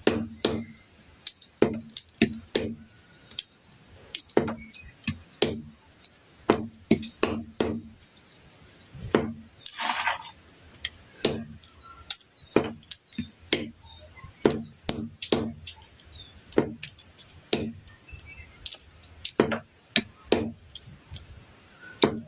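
Blade chopping Chinese olives open for their pits: sharp knocks on a board, about one or two a second in irregular runs, often in pairs. Birds chirp faintly in the background.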